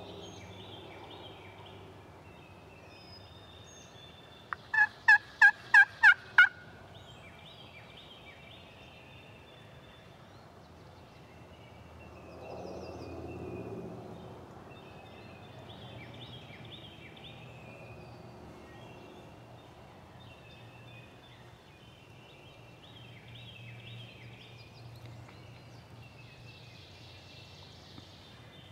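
A run of about seven loud, evenly spaced turkey yelps about four to six seconds in, each note dropping in pitch. Small songbirds chirp faintly throughout.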